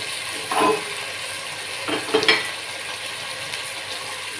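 Onions, tomatoes and green chillies sizzling as they fry in sesame oil in a clay pot, with a few short knocks about half a second and two seconds in.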